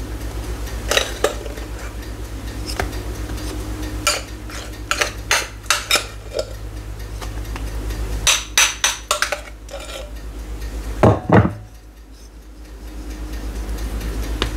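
A spoon clinking and scraping against a glass bowl in irregular taps while whipped cream is scooped out and dolloped, over a low steady hum.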